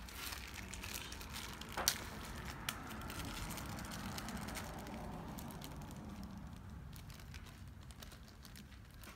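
Quiet rustling and small clicks of hands handling hardware from a plastic parts bag: new bolts and washers for the septic air pump rebuild kit, with one sharp click about two seconds in.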